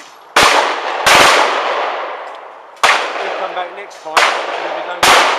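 Shotgun shots: five loud reports, the first two less than a second apart, then three more spaced about a second apart, each trailing off in a long fading echo.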